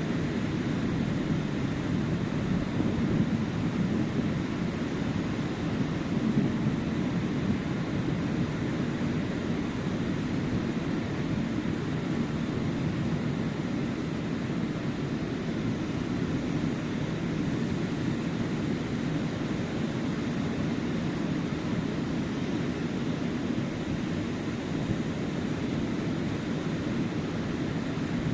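Ocean surf breaking on a sandy beach: a steady low rush with no separate wave crashes standing out.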